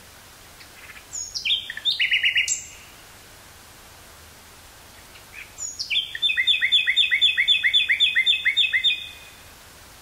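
Common nightingale singing: a short phrase of rapid varied notes, a pause of a few seconds, then a longer phrase building into a fast series of about four repeated notes a second. A steady faint hiss runs underneath.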